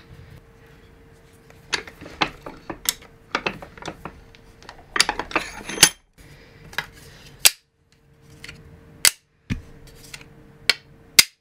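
Hard 3D-printed PLA parts clicking and knocking as they are handled and set down on a workbench: a run of short, sharp clacks at irregular intervals.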